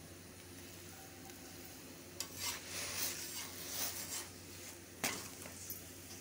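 Metal spatula scraping and pressing a paratha on a hot tawa, several strokes about two to four seconds in, then a sharp tap of the spatula about five seconds in, over a faint sizzle of the frying paratha.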